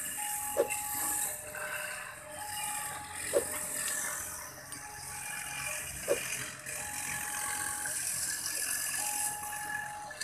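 Railway level-crossing warning alarm sounding a repeating electronic tone, on for about a second at a time, while the crossing's barrier booms are closed. Four short knocks fall at even spacing of about three seconds.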